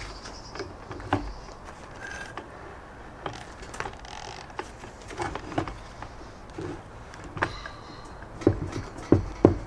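Metallic clicks, taps and scrapes of hands and a homemade tool working at the disc of a switched-off angle grinder to free a stuck disc. Three sharp knocks come near the end.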